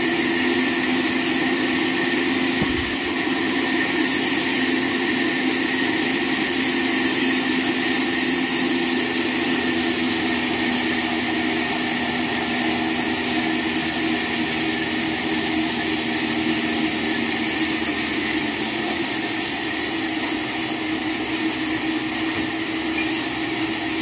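Horizontal band sawmill with an electric motor running steadily, a constant hum under a hissing whine from the blade.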